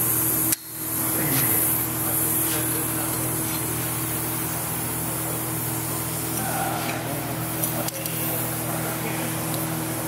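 Gas welding torch flame hissing steadily while a tack weld is made, over a steady low hum.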